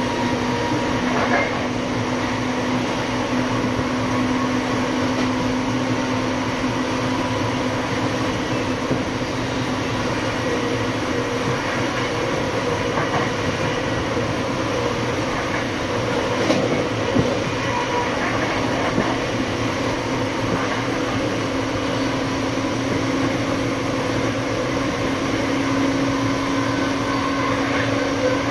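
Siemens Charger SC-44 diesel-electric locomotive with its Cummins QSK95 engine running under way: a steady drone with a constant hum over rail noise, the hum rising slightly near the end, and a few faint clicks.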